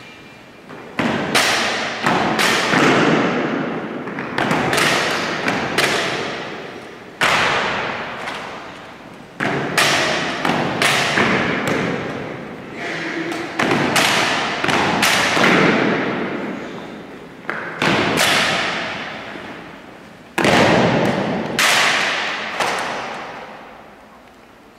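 Spanish Legion guard drill: boot stamps and rifle strikes on a stone floor, a series of sharp, loud impacts, singly or in quick pairs every second or two, each ringing out in the long echo of a large church.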